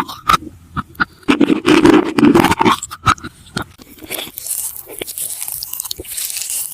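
Close-miked ASMR eating: biting into food and crunching it while chewing, with quick, crisp crunches through the second half.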